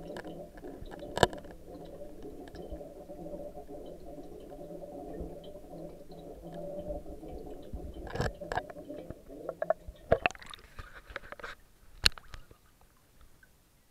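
Muffled underwater sound picked up by a camera sealed in its waterproof housing in a fish tank: a steady low rush with occasional sharp knocks of the housing. About ten seconds in comes a burst of knocks and splashing as the camera is brought up to the surface, and then it goes much quieter.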